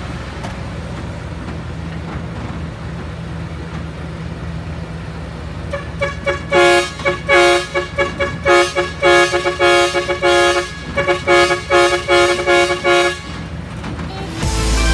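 A heavy diesel engine running steadily, then a vehicle horn sounding a rapid series of short honks for about seven seconds.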